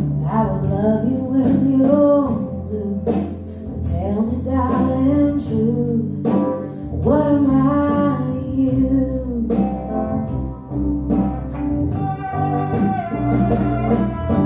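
A recorded song played back over ATC hi-fi loudspeakers in the listening room: a singing voice over plucked guitar and steady bass notes.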